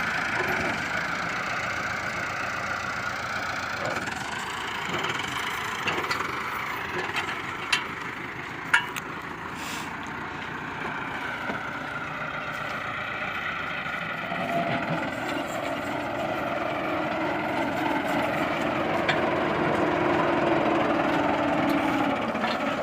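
Heavy machine engine running steadily, with two sharp knocks about eight seconds in. The engine note strengthens from about fifteen seconds in.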